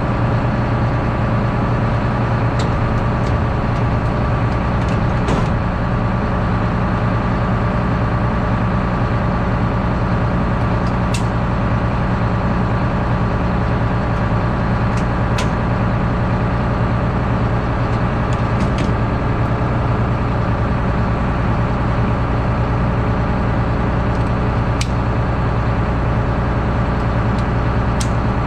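Combine harvester's diesel engine running steadily at a constant speed, with a few faint clicks.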